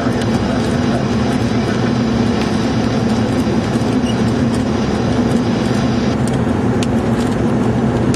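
Steady rumble of storm wind and the vehicle, heard from inside a car, with sharp ticks of rain on the windshield growing more frequent near the end.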